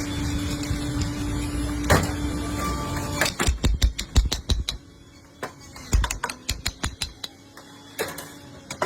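Electric blender motor running steadily, stopping a little over three seconds in; then a quick run of sharp knocks and clinks that thins out toward the end.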